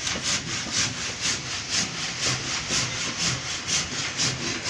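Hand saw cutting through a piece of wood with quick, even back-and-forth strokes.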